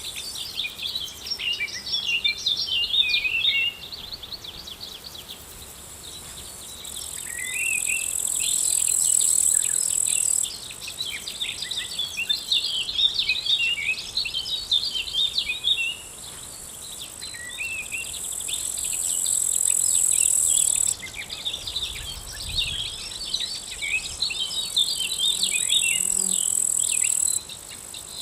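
Field ambience of insects trilling and small birds chirping. A high, steady insect trill swells in and stops abruptly three times, over a constant chatter of small birds calling and twittering.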